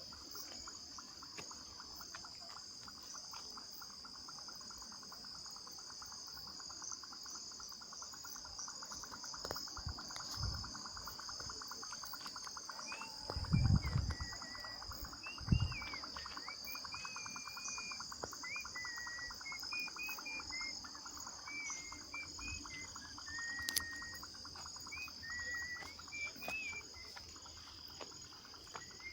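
Dusk chorus of insects: a steady high-pitched shrilling with a fast, even pulsing trill lower down. A bird's warbling song joins about halfway through, and a few low thumps come near the middle.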